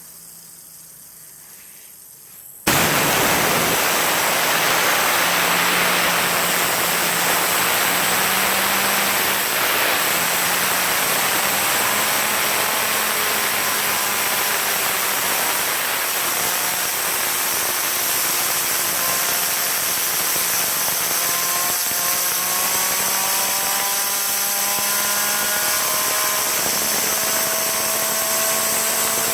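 Compressed-air blow gun from a compressor hissing loudly at a fidget spinner, starting suddenly about three seconds in. From the middle on, a faint whine rises slowly in pitch as the spinner speeds up.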